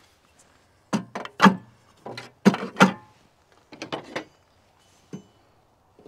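Plastic felling wedges being dropped and set into the slots of a metal tractor tool holder: a string of sharp clacks and knocks, some with a brief ring.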